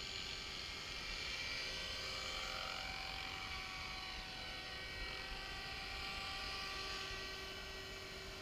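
Align T-Rex 450 electric RC helicopter in flight: a steady, buzzing whine from its motor and rotor. The pitch slides briefly about three seconds in as the helicopter moves.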